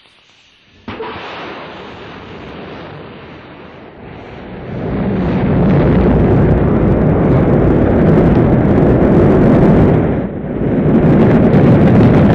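Rocket launch roar: a sudden blast of ignition about a second in, swelling about five seconds in to a loud, steady, deep roar of rocket engines at liftoff, with a brief dip near the end.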